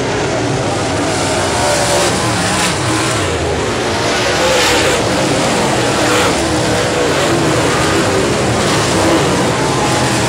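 Dirt late model race cars' V8 engines running at racing speed in a pack, their pitch rising and falling as they circle the dirt oval.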